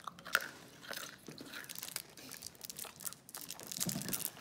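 A candy being chewed close to the microphone: irregular small crunches and clicks.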